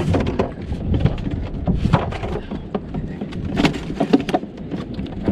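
Scattered knocks and clatter of a plastic cooler and a caught fish being handled in an inflatable boat, over a steady rumble of wind on the microphone.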